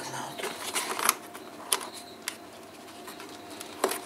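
A few scattered light clicks and taps from plastic heater-box parts being handled, over a faint steady hum.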